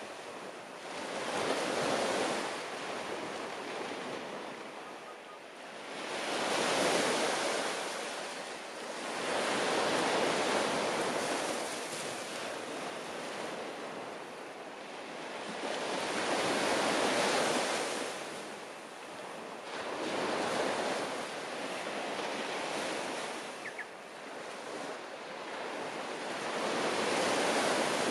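Surf breaking on a beach, the waves swelling and falling away every few seconds.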